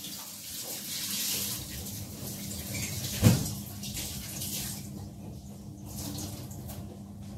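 Kitchen tap running into the sink as a houseplant is rinsed under the water, with a single sharp knock about three seconds in.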